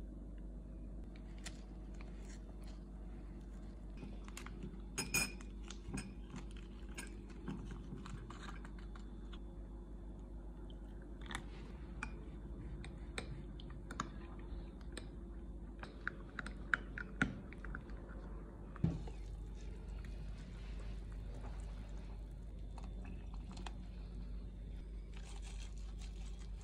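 Quiet food-preparation handling sounds over a steady low hum: scattered light clicks and taps from a cardboard stock-cube box being handled and a metal spoon stirring and tapping in a small glass bowl.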